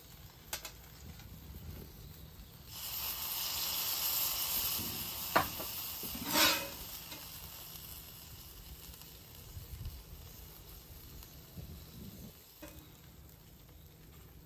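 Buttered rye bread and burger patties sizzling on a Traeger Flatrock flat-top griddle. The sizzle swells a few seconds in, with a couple of sharp clicks, then settles to a quieter hiss.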